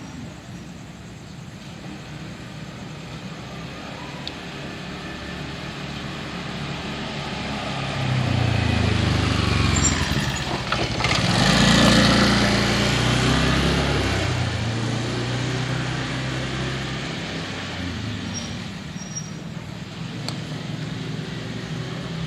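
A motor vehicle passes close by on the road. Its engine and tyre noise build over several seconds, are loudest about halfway through, then fade, over a steady background of traffic hum.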